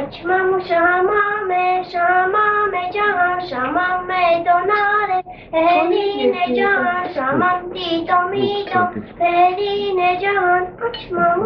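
A young girl singing a song solo, holding long notes, with a short break about five seconds in.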